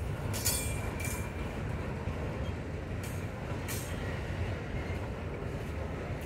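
Freight train of autorack cars rolling past: a steady rumble of wheels on rail, with a few short, sharp metallic squeals and clinks, two in the first second and two more about three to four seconds in.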